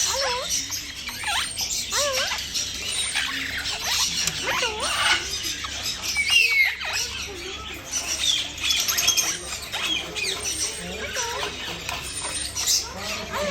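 Many caged birds chirping, whistling and squawking together, a dense overlapping chatter of short rising and falling calls, with a faint steady hum beneath.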